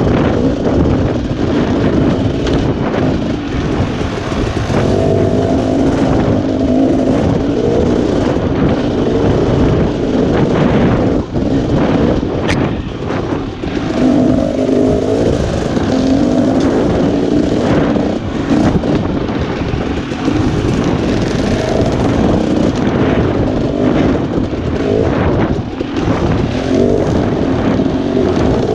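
Dirt bike engine running hard on a trail ride, its revs rising and falling with the throttle, with wind and jolting noise on the helmet-mounted microphone. A sharp click sounds about twelve seconds in.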